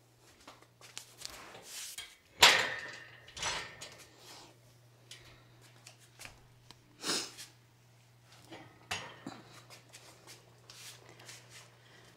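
Metal clanks and rattles of a plate-loaded barbell being handled in a steel squat rack. The loudest clank comes about two and a half seconds in, followed by a few quieter knocks, over a faint low hum.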